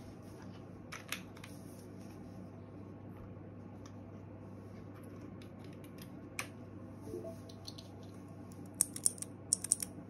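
An aluminium keyboard case being handled on a desk: a few scattered knocks and clicks as it is turned over and its USB cable plugged in, then a quick run of louder sharp clicks near the end.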